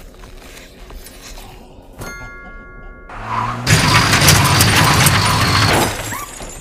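Cartoon sound effect of a van driving fast over bumpy ground: a loud engine and road rumble that sets in about halfway through and drops back near the end. It is preceded by a brief steady chord of high tones.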